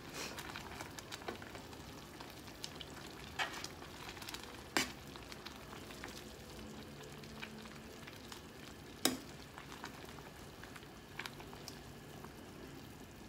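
Metal ladle stirring a pot of hot sotanghon noodle soup: a steady faint hiss of the simmering broth, with scattered clinks of the ladle against the pot, the loudest about five and nine seconds in.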